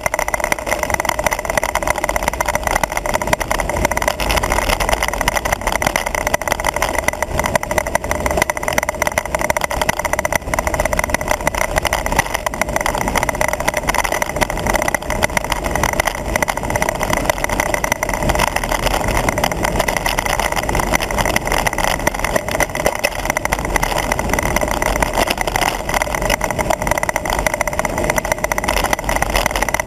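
Steady wind rush and road noise on a handlebar-mounted camera of a road bike riding at speed, with a steady hum running through it.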